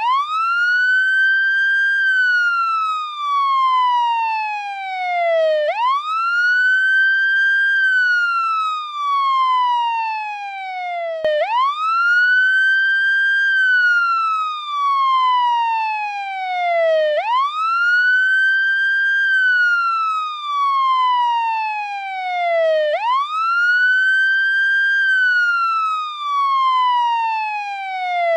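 American police siren on its wail setting, steadily cycling: each cycle sweeps quickly up in pitch, holds briefly, then slides slowly back down, repeating about every five to six seconds.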